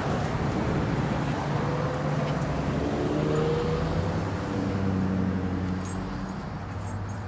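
A motor vehicle's engine running and passing by, a steady low hum that fades near the end.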